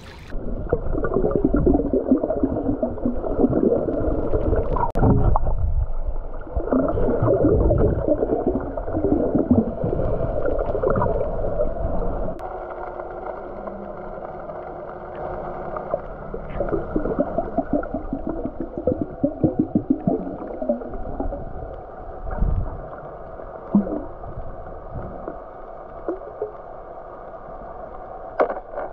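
Muffled underwater sound picked up by a camera held below the surface: water rushing and gurgling against the housing, with a few sharp knocks. It is loudest in the first twelve seconds, then quieter.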